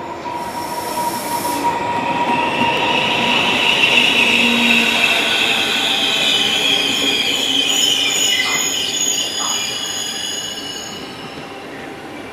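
Regional passenger train hauled by an electric locomotive pulling in along a station platform, the coaches rolling past with high squealing as it brakes. The squealing swells to its loudest about four seconds in and fades as the train slows. A short hiss comes about half a second in.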